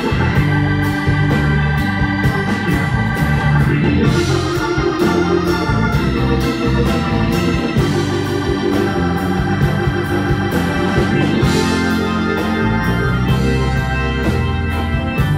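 Live band music with no vocals, a Hammond organ out in front over electric bass, electric guitars and a steady drumbeat.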